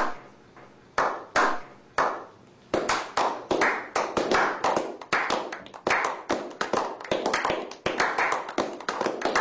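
A slow clap by a small group of men. Single hand claps come about a second apart at first, then more hands join from about three seconds in, and the claps quicken into steady applause.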